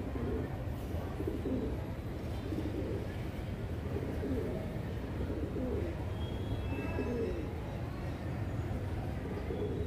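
Racing pigeons cooing, low warbling coos following one another about once a second, over a steady low rumble.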